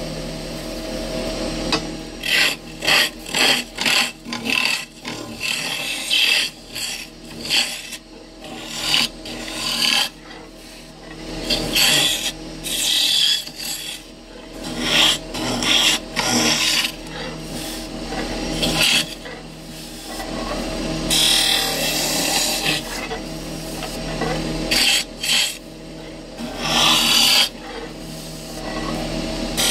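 A tool scraping and cutting wood in repeated, irregular strokes, over a steady low hum.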